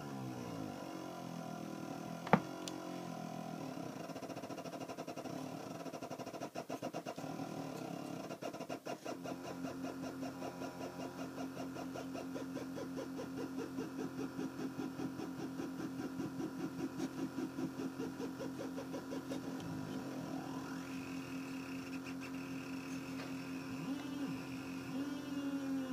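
Homemade oscillator noise box playing a buzzy electronic drone that pulses rapidly, its pitch gliding as the knobs are turned. There is a sharp click about two seconds in, and a rising glide near the end brings in a higher tone.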